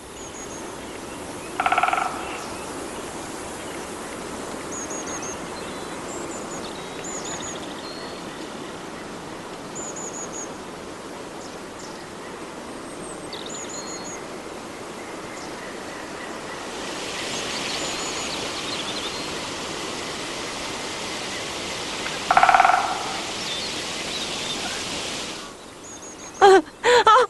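Countryside ambience: a steady hiss with small birds chirping now and then. The hiss grows a little brighter in the second half, and two short, louder pitched calls come about two seconds in and about twenty-two seconds in.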